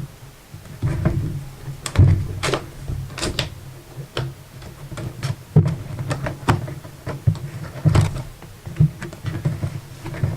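Laptop box being opened and its packaging handled: scattered knocks, clicks and thumps of cardboard and packing at irregular intervals.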